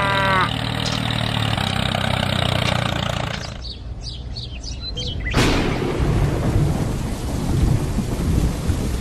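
An engine running steadily, dropping away after about three seconds. About five seconds in, a sudden loud rumbling noise takes over and continues.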